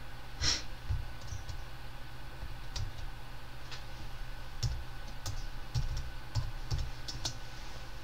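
Typing on a computer keyboard: a scattered run of single key clicks, sparse at first and closer together in the second half.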